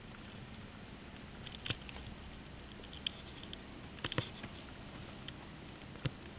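Soft scattered clicks and scratches of Russian Blue kittens' claws pawing at a carpet-covered cat house, with a few sharper ticks about a second and a half in, around four seconds, and near the end.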